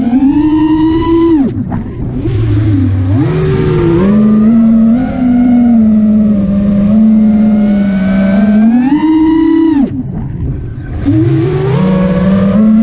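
FPV racing quadcopter's brushless motors (TBS Mr Steele 2345KV) whining as they spin 5-inch props, the pitch rising and falling with throttle. The whine drops away sharply twice, about a second and a half in and near the ten-second mark, as the throttle is chopped, then climbs back.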